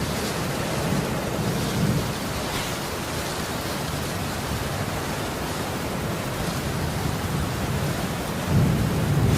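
Sound-effect track of heavy rain pouring steadily, with low rumbles of thunder swelling under it, a stronger one near the end.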